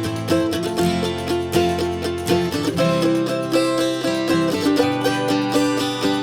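Background music on plucked string instruments, with quick picked notes over a steady pulse.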